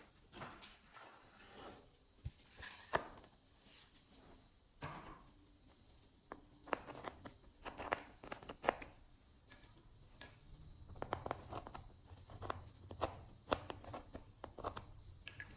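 Slime being worked by hand: irregular sticky clicks, crackles and short squelches.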